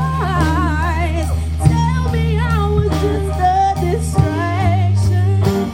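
A female R&B singer sings a live song in a wavering vibrato, over sustained low bass notes and a drum beat.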